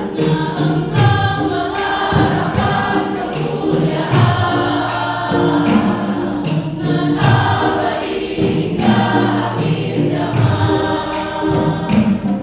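Junior high school choir singing a hymn in held, sustained chords over steady low notes.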